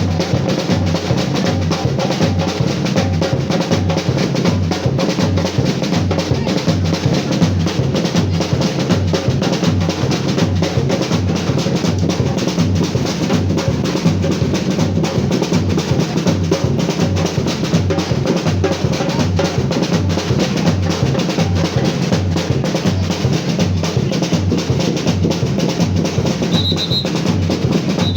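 Batucada samba percussion ensemble playing a steady, dense groove, with deep bass drums pulsing underneath and snare rolls over it. A few short high tones sound near the end.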